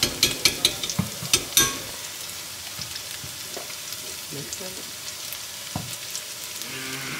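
Chopped onion sizzling in achiote oil in a saucepan on a gas burner. In the first two seconds a metal spoon clinks sharply against the pan several times as peanut butter is scraped off it, then steady sizzling.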